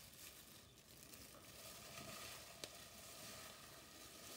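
Faint squishing and rustling as raw tuna chunks and spice powders are mixed by hand in a plastic glove in a glass bowl, with one small tap about two and a half seconds in.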